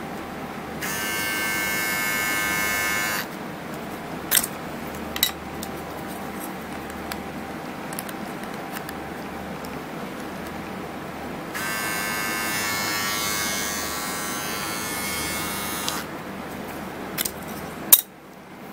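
Braun MGK3060 trimmer's motor switched on twice, buzzing for about two seconds and then for about four seconds before cutting off. Between and after the runs come a few sharp plastic clicks.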